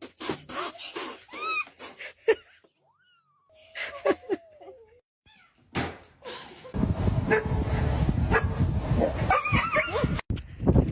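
A cat meowing in a few short calls among clicks and knocks. From about seven seconds in, a loud, rough, steady noise runs for about three seconds and then cuts off suddenly.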